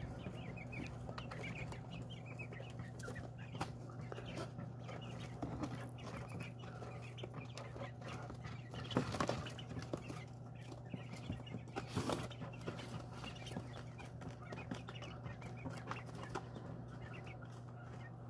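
Young quail clucking and calling softly while pecking at food, with many small taps and a couple of louder knocks, over a steady low hum.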